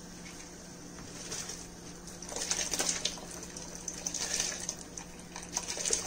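Soaked basmati rice being poured from a bowl into a pot of boiling water: a patter and hiss of wet grains dropping in, coming in spells from about two seconds in, over a steady low hum.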